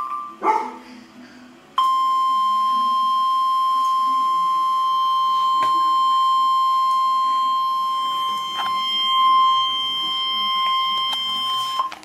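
Emergency Alert System attention tone: a single steady, shrill electronic tone held about ten seconds, then cut off abruptly. It signals that a tornado warning is about to be read. A brief electronic burst comes just before it at the very start.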